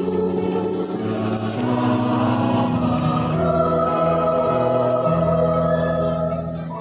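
Mixed choir of men's and women's voices singing sustained chords in harmony, tapering off near the end.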